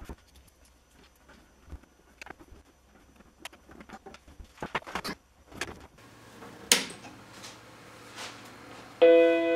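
Clicks and knocks of the Macintosh Classic II's plastic case being handled and set down, then a sharp click. Near the end the Macintosh Classic II sounds its startup chime, a single chord that rings out and fades over about a second as the machine powers on.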